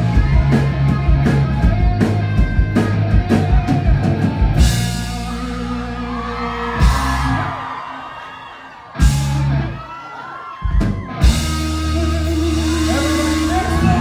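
Live rock band playing loud and amplified, with driving drum-kit hits and bass. Around eight seconds in it thins out, then comes back in with sharp hits and held bass notes, while the audience cheers and screams.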